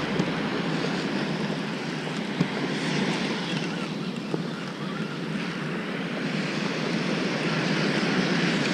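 Steady ocean surf washing onto the beach, with wind on the microphone and a few light clicks.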